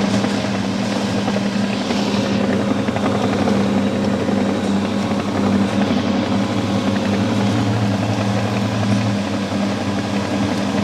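Heavy-equipment diesel engine running steadily under load with a constant drone, as the machines travel to a new site.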